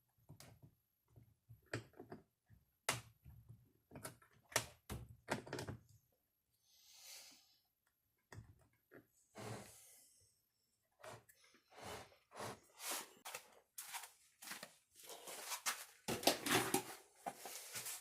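Scattered clicks, knocks and clatter of metal tools and chainsaw parts being handled on a workbench, with two short soft rushes in the middle. The clatter grows busier near the end as tools are rummaged through for a wrench.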